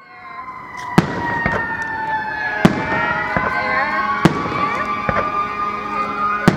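Fireworks display going off close by: a string of sharp bangs, about seven in these few seconds, over a steady wavering high whine. The sound fades in over the first second.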